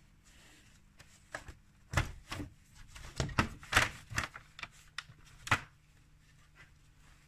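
Plastic engine cover of a Škoda Octavia 1.9 TDI being pulled off, giving a run of sharp clicks and knocks over about four seconds.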